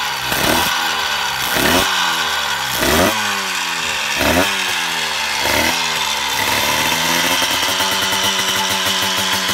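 Yamaha TZ125's single-cylinder two-stroke racing engine being blipped: a sharp rev about every second and a half, each one dying back down. About two-thirds of the way in it settles into a steady fast idle.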